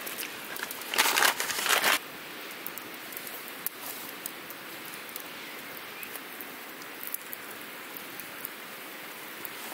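Close hand-handling of cooked bacon slices and a green wooden stick skewer: a second of loud rustling about a second in, then a steady low hiss with scattered small crackles and clicks.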